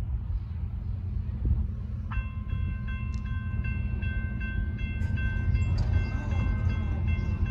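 Railroad crossing warning bell starts about two seconds in and rings on in a steady, evenly repeated electronic ding: the crossing signals activating for an approaching train. A low rumble runs underneath.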